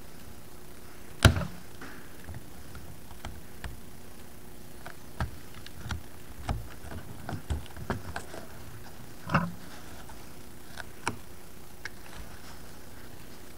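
Scattered small clicks, taps and scrapes as a snap-off utility knife trims the cloth covering of an ultralight's fuselage around a bracket opening and the metal bracket is handled, with one sharp click about a second in the loudest. A steady faint hum runs underneath.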